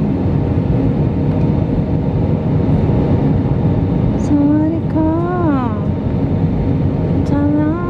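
Steady jet airliner cabin noise, the engines and rushing air heard through the fuselage. A person's voice sounds briefly twice over it, around the middle and near the end.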